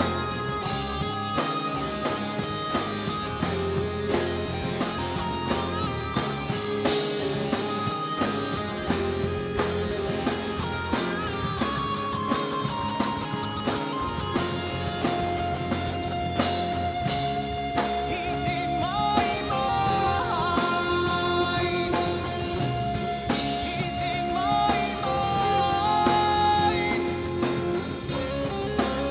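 Hard rock band playing live: electric lead guitar over drums, bass and strummed acoustic guitar, with singing coming back in near the end.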